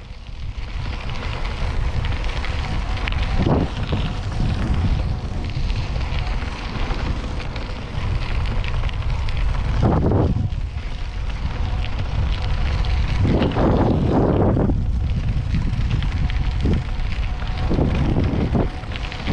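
Wind buffeting the microphone of a camera on a moving bicycle: a loud, low rumble that surges several times.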